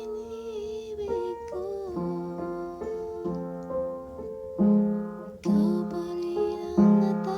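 Piano played in slow chords, a new chord struck every second or so, with a soft, whispery voice singing along and holding a wavering note in the first second and a half.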